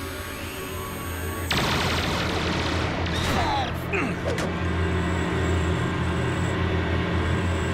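Cartoon action score with sci-fi sound effects. A steady electronic tone gives way, about a second and a half in, to a sudden loud rushing rumble that carries on, with a few falling whistle-like tones around three to four seconds in.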